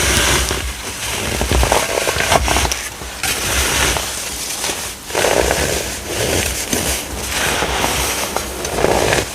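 Compressed baking soda being crushed, giving off a dense crackling crunch that comes in several waves of squeezing.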